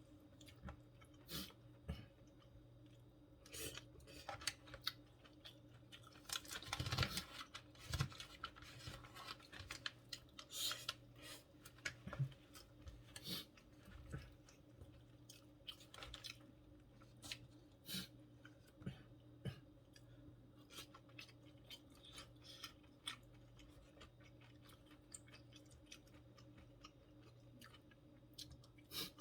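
Close-miked chewing and crunching of food in a mukbang, a run of short wet clicks and crunches scattered through, busiest about seven seconds in.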